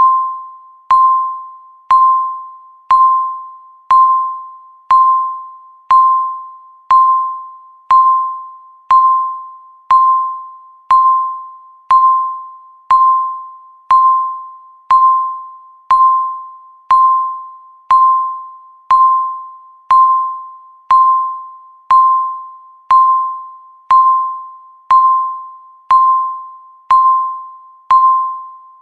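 Electronic countdown-timer beep sounding once every second: a single steady high tone that starts sharply and fades away before the next beep.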